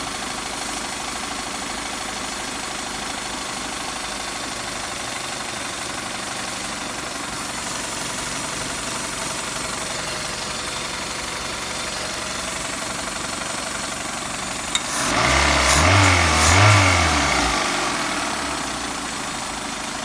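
Toyota 3SZ four-cylinder engine idling with a knock, blipped twice in quick succession about 15 seconds in, then settling back to idle. The knock is from the oil pan, which the owner takes for the crankshaft catching the pan.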